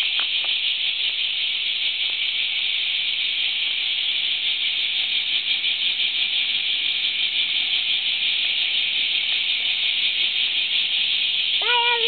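Chorus of cicadas: a steady, dense, high-pitched drone.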